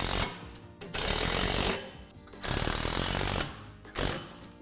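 Cordless drill driving and tightening bolts into a metal playset frame, running in bursts of about a second with short pauses between them.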